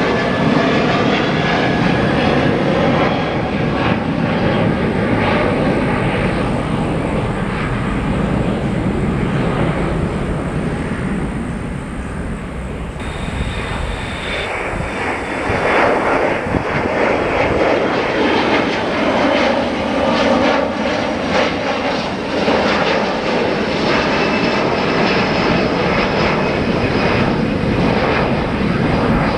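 Jet engine noise from Boeing 737 airliners climbing out after takeoff. It is loud and steady throughout, and changes abruptly about halfway as one departure gives way to another.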